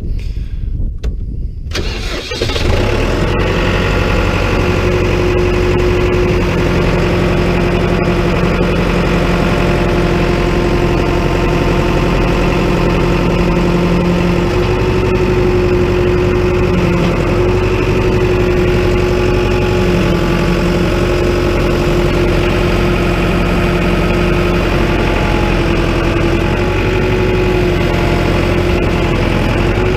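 John Deere 5520 tractor's four-cylinder diesel engine starting about two seconds in, then running steadily at idle.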